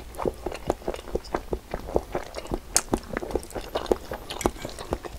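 Chewing a mouthful of cream carbonara spaghetti: a steady run of soft, wet mouth clicks and squelches, several a second.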